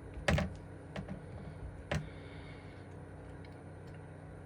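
A few light clicks or taps in the first two seconds, the first the loudest, over a steady low hum.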